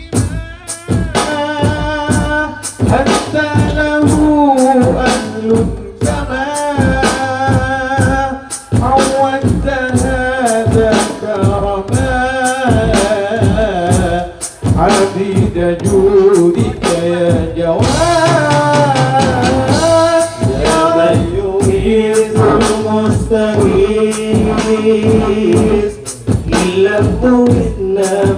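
Group of men singing an Islamic devotional song (sholawat) into microphones, amplified through a PA, over a steady percussion beat.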